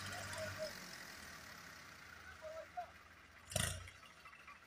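New Holland tractor's diesel engine running steadily, then cutting off about half a second in. Faint voices follow, and there is one brief loud bump about three and a half seconds in.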